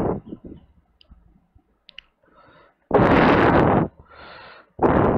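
Loud bursts of rushing noise on the microphone: one about three seconds in lasting about a second, and another near the end, with fainter hiss between them and a few faint clicks.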